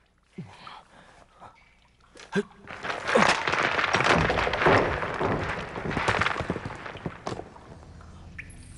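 Rock wall breaking open: a few knocks, then from about three seconds in a loud crash and clatter of stones breaking and tumbling for several seconds, dying down near the end.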